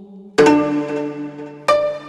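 Gayageum, the Korean plucked zither, sounding two strong plucked notes about a second and a quarter apart, each ringing on and fading after the pluck.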